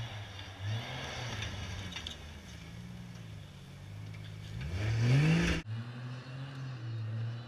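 Modified off-road Jeep's engine revving up and down repeatedly as it climbs a steep rocky hill. It builds to its loudest rev about five seconds in, then cuts off suddenly into a steadier engine note.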